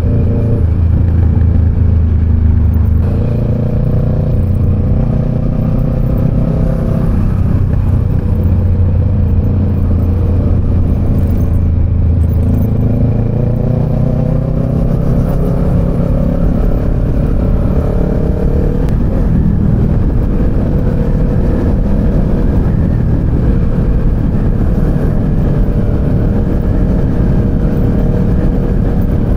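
Kawasaki Z650 parallel-twin engine running in third gear while under way, its pitch rising and falling with the throttle, over wind and road noise.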